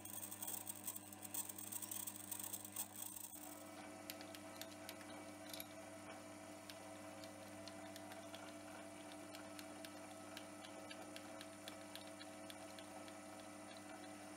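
Hobby lathe running while a 6 mm drill bores into stainless steel rod: a faint steady motor hum with light ticking and cutting hiss. About three seconds in, the sound changes and a higher steady whine joins the hum.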